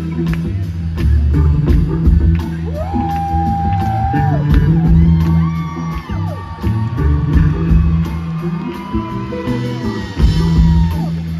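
Live blues-rock band playing loud on electric guitar, bass and drums, with a steady beat and long held notes that bend up and down at their ends.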